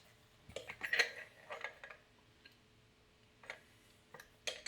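Light metal clicks and clatter of a lock and lock-picking tools being handled and set down: a quick cluster of clicks about half a second to two seconds in, then a few single clicks near the end.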